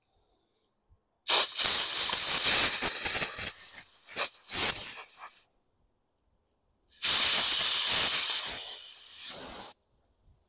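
Two blasts from a compressed-air blow gun, one of about four seconds and one of about three, hissing loudly and wavering as the air is forced through a lawn mower carburetor's small plastic jet cartridge. The air is clearing passages clogged by contaminated fuel.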